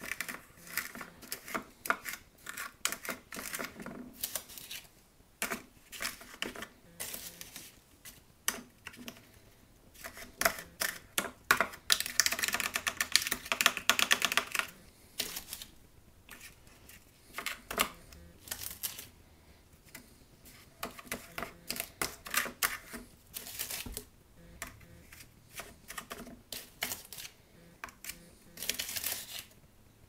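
A metal spoon scraping and tapping a damp, crumbly borax and washing-soda paste out of a plastic tub and pressing it into a plastic ice cube tray: irregular clicks and scrapes, with a longer run of rapid scraping about twelve seconds in.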